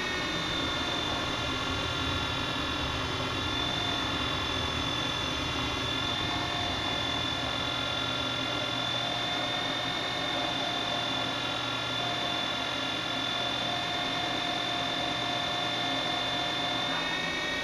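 A 2x72 inch belt grinder running steadily while a steel bar is ground along its 10-inch contact wheel: an even, high whine of several tones over a constant hiss, its pitch shifting slightly near the end.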